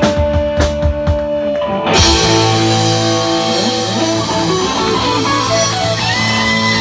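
Live rock band of drum kit and electric guitars: rapid drum hits under held notes, then about two seconds in a loud cymbal crash into a held chord with cymbal wash, and the electric guitar bending notes over it.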